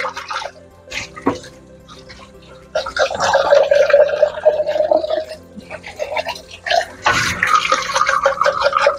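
Tap water pouring into a clear plastic Nutribullet cup and splashing into a stainless-steel sink. It comes loud in two spells, about three seconds in and again about seven seconds in, over faint background music.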